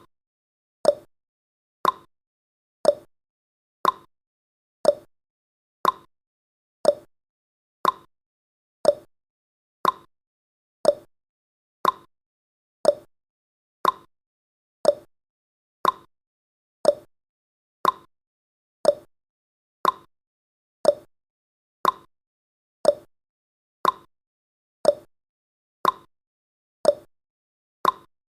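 A countdown timer's ticking sound effect: short clock-like ticks, one each second, alternating between a higher and a lower tick like a tick-tock.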